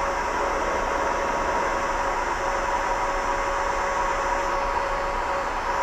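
Heat gun blowing steadily with a constant motor whine, heating shrink tubing over a wire connector to seal it.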